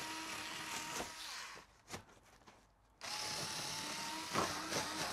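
Handheld electric rotary cutter whining as it slices through double-thickness cardboard. It runs for about a second and a half, stops, then starts cutting again about three seconds in.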